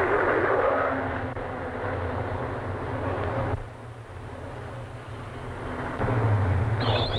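Car engine and road noise as a car speeds along a street, with a brief high squeal near the end.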